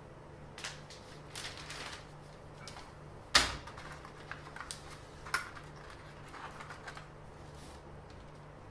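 Small objects being handled: scattered clicks and rustles with one sharp knock about three and a half seconds in and a smaller one about two seconds later, over a faint steady hum.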